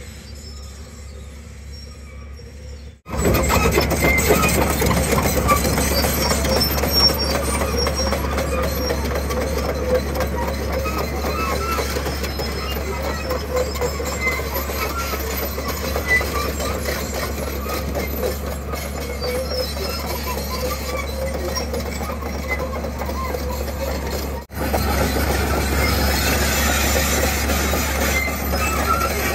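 JCB JS205 tracked excavator travelling: its steel tracks clank and squeal over the steady running of the diesel engine. The sound starts abruptly about three seconds in and breaks off briefly about five seconds before the end.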